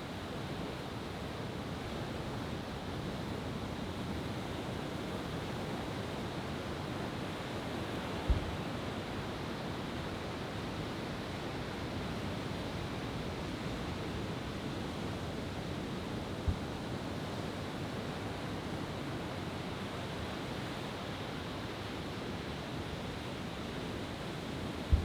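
Deep, distant booms of large fireworks shells, three of them about eight seconds apart (one about 8 seconds in, a weaker one about 16 seconds in, another at the very end), over a steady rushing background noise.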